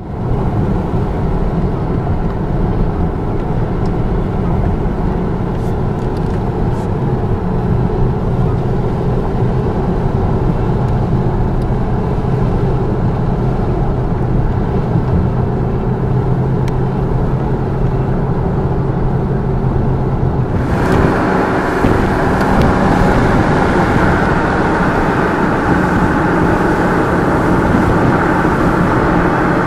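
Car cabin noise while driving uphill: a steady low engine drone with road rumble. About two-thirds of the way through, the sound turns suddenly brighter and hissier, with more rushing noise.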